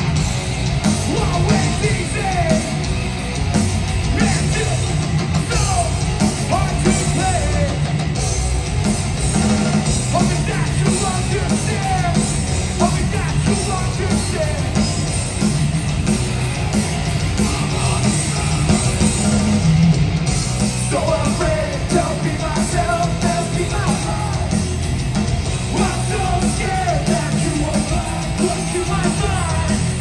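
Live hardcore punk band playing loudly through a large PA: distorted electric guitars, bass and drums under shouted, sung vocals, heard from within the crowd.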